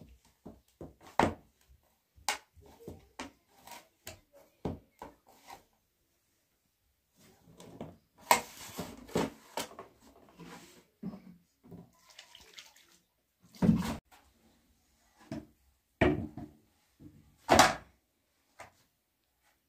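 Bread dough kneaded by hand in a metal basin: sticky squelches and small slaps, rustling of flour being worked in, and three heavy thumps in the second half as the dough mass is pressed and slapped down against the pan.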